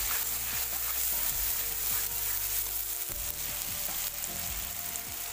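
Chopped onions, tomatoes and ground spice paste sizzling in hot oil in a kadai, with a metal spatula stirring them.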